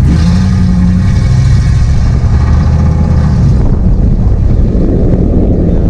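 Ford F-150 pickup's engine and exhaust while driving: a steady drone for about three and a half seconds, then giving way to a rushing wind and road noise near the end.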